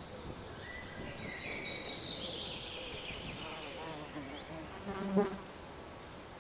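A flying insect buzzing close by, its pitch wavering as it passes, loudest about five seconds in before it moves off. Birds sing in the background during the first half.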